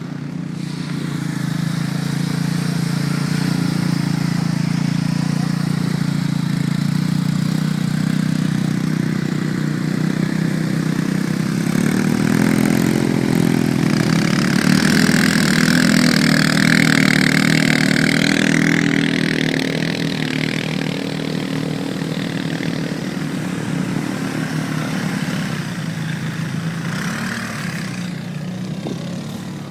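ATV engine running steadily, getting louder and busier with a rush of noise around the middle, then easing off toward the end.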